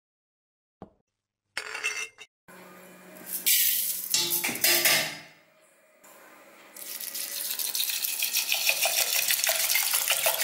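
Dishes clattering and clinking for the first few seconds. Then, about seven seconds in, a stream of water pours steadily into a steel bowl of washed pearl millet.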